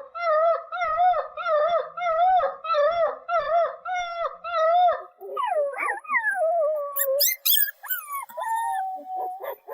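Puppy howling: a run of short wavering yowls, about two a second, then longer overlapping howls that fall in pitch, ending in one drawn-out falling howl. A few sharp clicks about seven seconds in.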